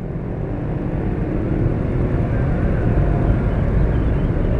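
Traffic noise heard from a scooter moving slowly in congested motorbike and car traffic: a steady low rumble of engines that grows a little louder about a second in.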